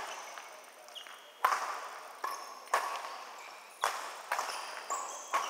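Badminton rackets striking a shuttlecock in a rally: about seven sharp, irregularly spaced smacks, each echoing off the hall.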